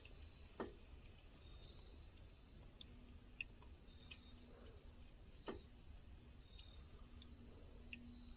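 Near silence: a faint steady insect drone with scattered short bird chirps, and two soft knocks, one about half a second in and one about five and a half seconds in. A faint low hum comes in about three seconds in.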